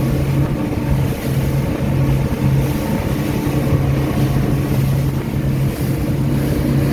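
Motorboat engine running steadily at a constant pitch, a loud hum under a low rumble.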